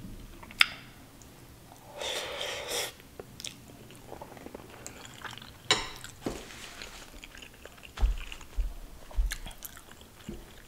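Close-miked chewing of a mouthful of curry eaten by hand, with wet mouth clicks and smacks. A louder rustling burst comes about two seconds in, and a few low thumps come around eight to nine seconds in.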